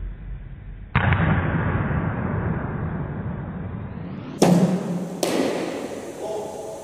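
Sharp knocks of a cricket ball in indoor nets, from bowling-machine deliveries and the bat meeting the ball: one about a second in, then two more after about four and a half seconds, each ringing on in the echoing hall.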